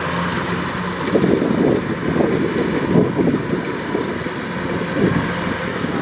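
Kubota DC-105X rice combine harvester running steadily while cutting rice, its engine a constant low drone. Wind gusts buffet the microphone several times.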